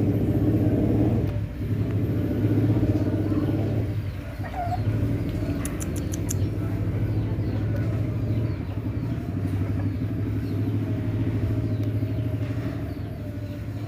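A motor vehicle's engine running steadily, with a brief run of quick, high clicks about six seconds in.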